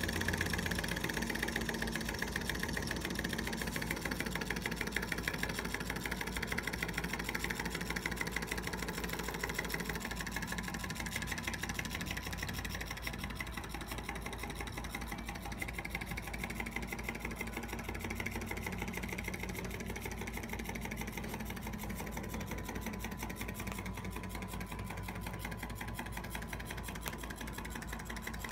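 A model Rider-Ericsson hot air engine (a PM Research 1/10-scale copy of an 1895 water-pumping engine) running steadily on the heat of its alcohol burner. It makes a fast, even mechanical clatter as the flywheel and linkages turn and drive its little water pump.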